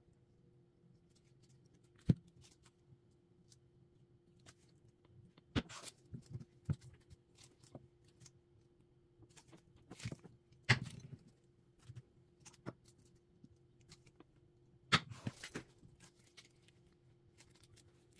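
Light knocks, scrapes and clicks of melt-and-pour soap bars being cut in a wooden cutting box and handled with latex-gloved hands, coming every few seconds, some in short clusters. A faint steady hum runs underneath.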